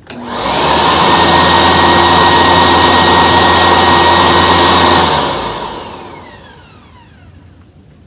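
Eureka commercial upright vacuum cleaner with a 7.0 amp motor switched on, coming up to speed within a second and running with a steady whine for about five seconds. It is then switched off and winds down with a falling whine. It runs very smooth on its freshly replaced beater-bar belt.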